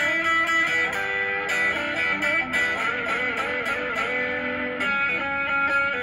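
Stratocaster-style electric guitar playing an instrumental blues passage: picked notes, some wavering with vibrato, over rhythmic chording.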